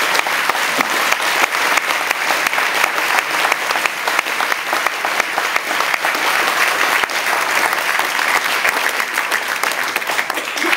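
Large audience applauding: steady, dense clapping of many hands.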